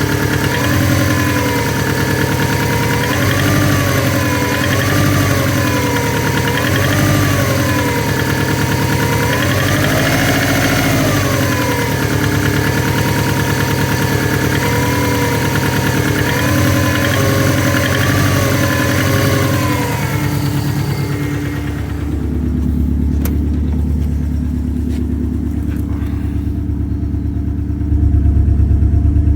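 Subaru Forester (SF5) flat-four boxer engine running, an engine its owner reports as knocking. Its revs rise and fall in repeated gentle swells for about the first twenty seconds, then it settles into a duller, steady low rumble that grows louder near the end.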